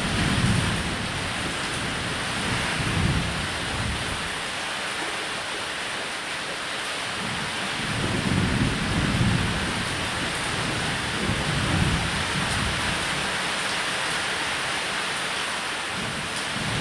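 Steady rain falling, with low rumbles of thunder rolling in several times, swelling near the start, about three seconds in, and again twice in the second half.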